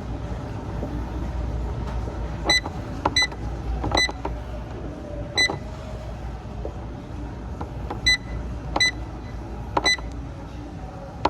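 Gym exercise machine console beeping: about seven short electronic beeps at irregular intervals, as its buttons are pressed, over a steady low hum.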